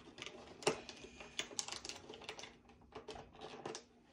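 Irregular clicks and crackles of an action figure's packaging being handled and pulled open by hand.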